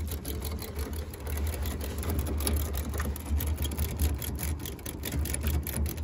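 Outdoor condensing unit of a split-system air conditioner running during a refrigerant pump-down: a steady low compressor hum with a fast buzzing rattle over it.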